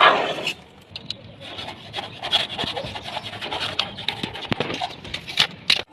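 Irregular scraping and rubbing on a hard surface, with many short clicks and knocks, after a loud burst of noise at the very start.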